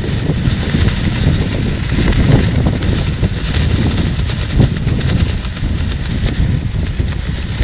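Strong gusting wind rumbling on the microphone, with a plastic rainsuit flapping and crackling in it.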